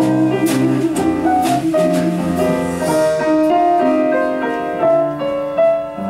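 Solo piano accompaniment playing an instrumental passage of a show tune, with no singing over it.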